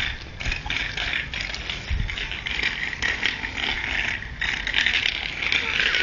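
Bicycle rattling over rough concrete: a continuous loose, irregular clatter of metal parts.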